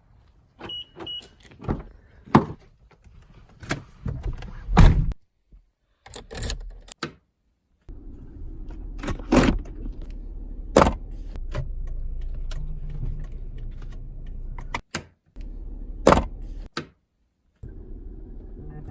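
Clicks and thunks of a car door and keys being handled, then a car running with a steady low hum, punctuated by knocks. The sound cuts out abruptly several times.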